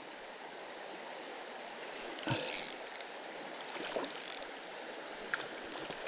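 Steady murmur of running creek water, with short rattling bursts from a Pflueger Trion spinning reel being worked, about two seconds in and again around four seconds.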